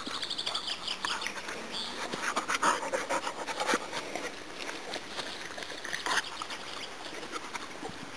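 Dogs licking and nosing at a plastic bowl, with many short clicks and smacks of tongues and muzzles against it. A small bird trills rapidly twice near the start.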